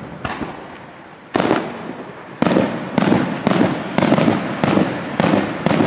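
Aerial firework shells bursting overhead in a quick series: about ten sharp bangs, each ringing out and fading, with the bangs coming faster in the second half.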